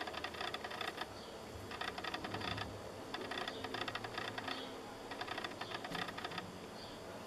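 Bursts of quick, dry crackling clicks, each lasting about a second, repeating with short gaps as hands handle pieces of sliced ham and brush the parchment paper under the pizza.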